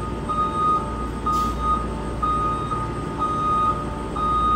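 A school bus's reverse alarm beeping about once a second as the bus backs up, with its engine running low and steady underneath.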